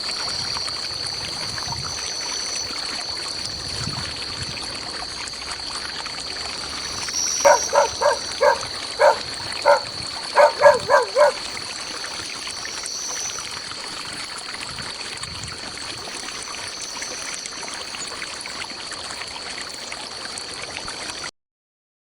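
Tropical forest ambience: a steady flowing stream under a constant high insect drone. About a third of the way in, an animal gives a quick run of about ten short, sharp calls over some four seconds. The sound cuts off abruptly near the end.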